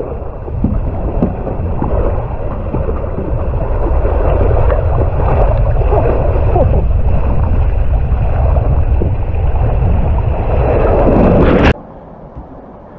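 A ride down a water slide: rushing water and wind on the microphone with scattered knocks, ending in a splash into the pool about 11.5 s in. After the splash the sound drops sharply and turns muffled.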